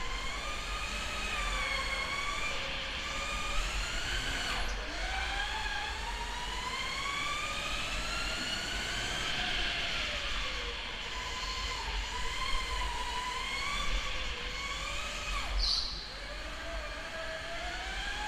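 Electric go-kart motors whining, several pitches gliding up and down as the karts speed up and slow for the corners, with a short high squeal near the end.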